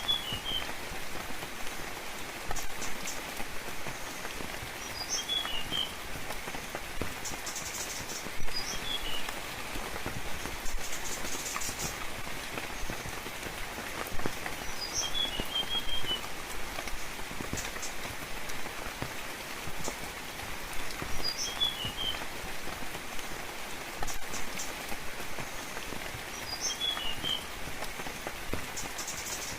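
Steady rainfall pattering, with a small songbird repeating a short call every few seconds: one high note followed by a quick cluster of three or four lower chirps.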